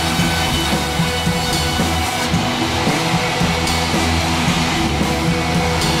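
Background music with guitar, played steadily throughout.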